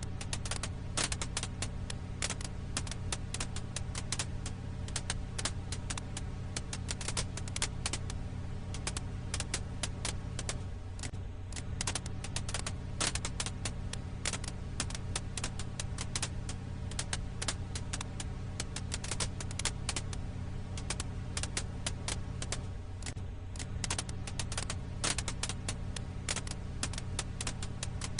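Firewood crackling: a dense, irregular run of small sharp pops and snaps over a steady low hum. The same pattern seems to repeat about every twelve seconds, as in a looped recording.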